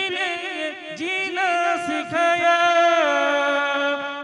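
A man singing unaccompanied, a drawn-out, ornamented line of an Urdu devotional song (naat), ending on a long held note.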